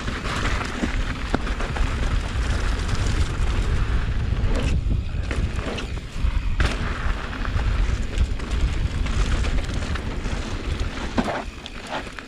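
Downhill mountain bike riding on a dirt trail: heavy wind buffeting on the microphone over tyre and trail noise, with sharp knocks and rattles from the bike over rough ground a few times.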